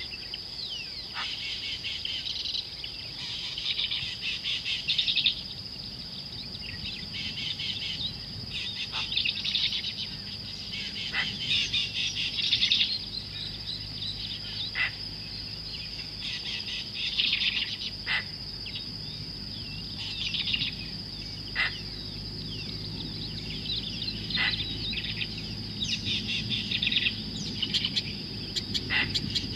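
A steady high insect drone, like crickets, under a chorus of small wild birds chirping and twittering in bursts, with a short sharp falling whistle every couple of seconds. A low hum rises underneath from about halfway.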